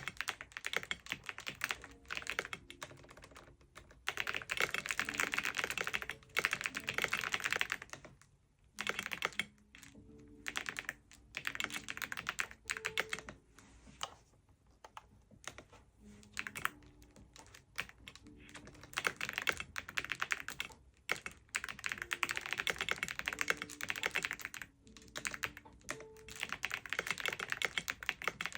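Typing on a computer keyboard: rapid key clicks in runs of a few seconds, broken by short pauses.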